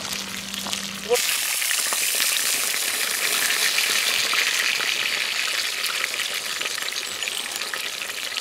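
Beer-battered fish fillets frying in hot oil in a pan over a campfire: a steady sizzle that jumps sharply louder about a second in and eases a little toward the end.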